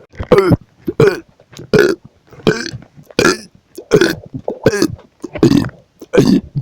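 A person belching rapidly, about nine short burps in a steady run of roughly one every three-quarters of a second, many dropping in pitch. They are repeated, painful burps from an upset stomach after a bad combination of snacks.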